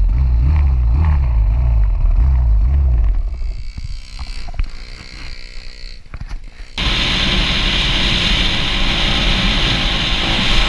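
Dirt bike engine running close to the camera, its pitch rising and falling with the throttle, for the first three seconds. Then comes a much quieter stretch in which a small dirt bike's engine is heard faintly at a distance. From about seven seconds a loud, steady rush of wind and engine noise from moving at speed takes over.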